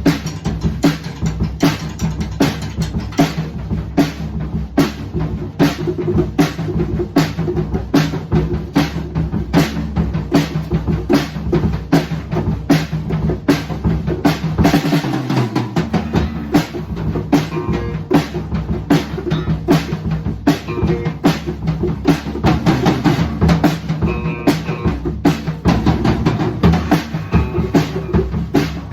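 A live band playing an instrumental passage with no singing. A drum kit keeps a steady beat on kick and snare over bass guitar and other instruments. The low end drops out briefly about halfway through.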